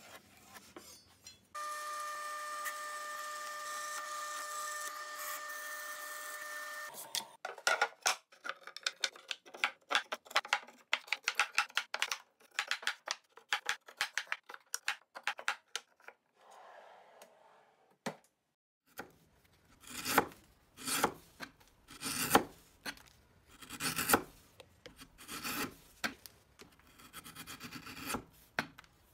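Steel router-bit shanks clicking and knocking as they are dropped into the holes of a wooden storage-drawer insert. After a short gap comes about a dozen even shaving strokes of a hand tool along a thin wood strip, a little faster than one a second. Before the clicks there is a steady hum for a few seconds.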